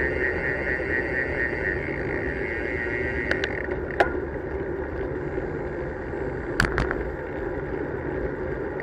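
Steady wind and tyre rumble from a camera mounted on a moving road bicycle, with a higher steady buzz that fades about a third of the way in. A few sharp clicks and knocks from the bike pass over the road, the loudest about four seconds in.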